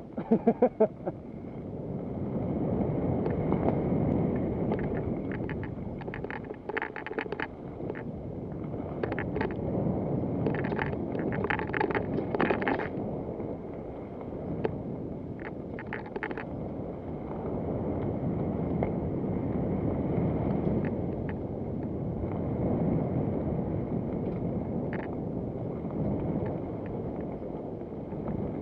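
Wind buffeting the microphone while moving, a steady rumble that swells and fades, with clusters of quick rattling clicks between about six and thirteen seconds in.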